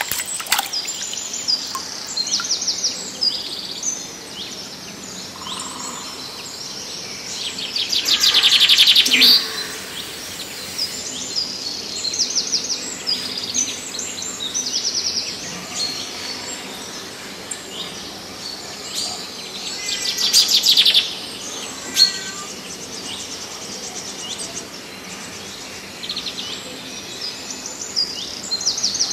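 Several birds chirping and calling over and over, with two louder, rapid trills about eight and twenty seconds in.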